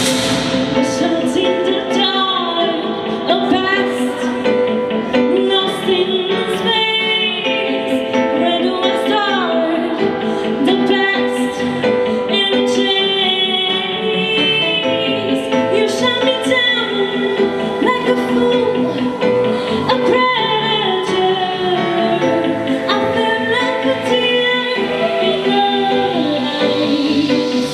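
A woman singing into a handheld microphone over instrumental accompaniment, her voice gliding and sliding between sustained notes.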